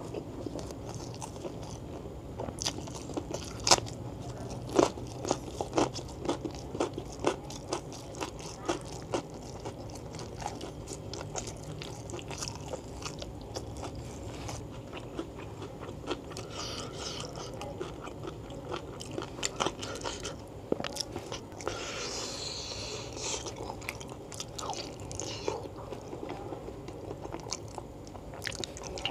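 Close-miked chewing of beef-foot tendon and fat with rice, with many sharp, wet mouth clicks and smacks.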